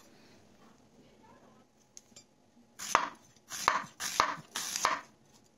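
Kitchen knife slicing an onion on a wooden chopping board: four quick cuts, each a sharp knock of the blade on the board, in the second half after a quiet start.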